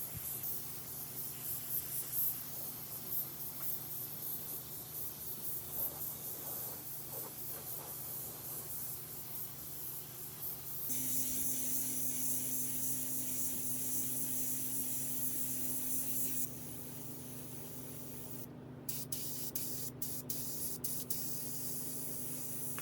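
Steady spraying hiss that jumps louder about eleven seconds in and falls back about five seconds later.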